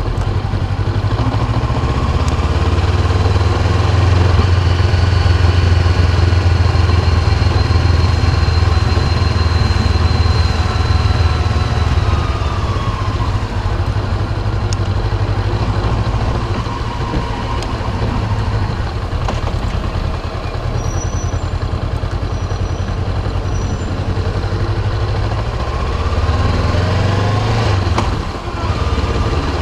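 Honda CB500X's parallel-twin engine running while riding. A thin high whine holds steady, falls in pitch a little under halfway through, and rises again near the end. Short high chirps come about two-thirds of the way in. The rider hears this as a high-pitched chirping from the front of the bike when rolling off the throttle with the clutch engaged, and is sure it is not the chain.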